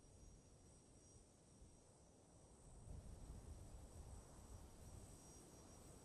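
Near silence: faint, steady insect chirring, like crickets, with a low rumble that grows louder about halfway through.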